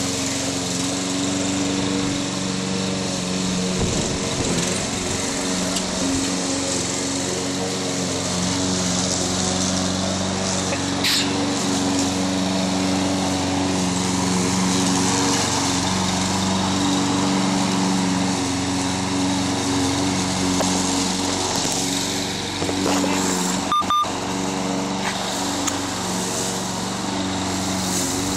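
Craftsman walk-behind gas lawn mower running steadily as it is pushed through tall grass, its engine note wavering slightly now and then under the load of the cut.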